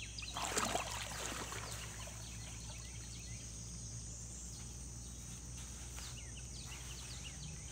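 A brief splash about half a second in as an eastern softshell turtle dives back into the river, then birds chirping over a steady high insect drone.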